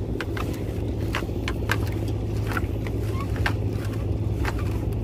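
Small fishing boat's engine running steadily, a constant low hum, with scattered short sharp clicks over it.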